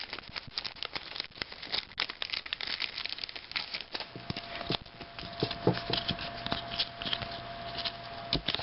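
A trading-card pack wrapper being torn open and crinkled by hand, with the cards inside being handled: an irregular run of crackles and small clicks.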